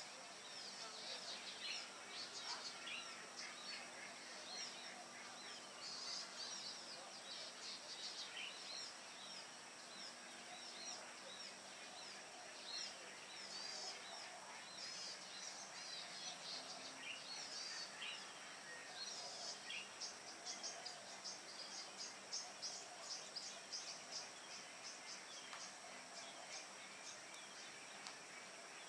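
Morning chorus of many small birds chirping and twittering, with a fast run of rapid chirps about two-thirds of the way through, over a steady faint high-pitched hum.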